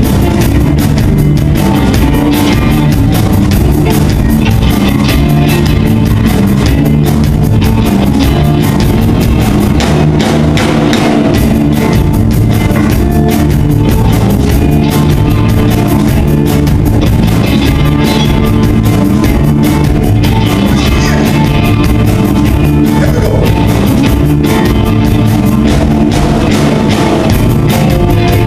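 Blues band playing live: two electric guitars, electric bass and drum kit, loud and steady.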